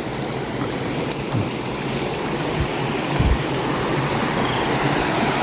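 Water rushing steadily, growing slowly louder, with a couple of low thumps about three seconds in.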